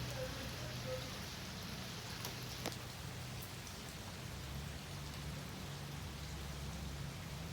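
Steady rain falling, with one sharp click about two and a half seconds in and a low steady hum underneath.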